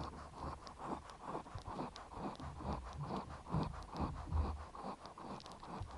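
Newborn chihuahua puppies suckling at their mother's teats: a faint, quick, even run of soft wet sucking and smacking sounds.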